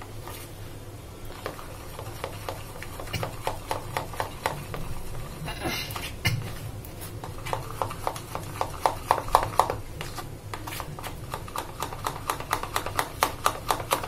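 A spoon beating thick gram-flour and curd batter in a plastic bowl: a quick, steady run of clicks as the spoon strikes the bowl, mixed with soft wet squelching, growing faster and louder in the second half.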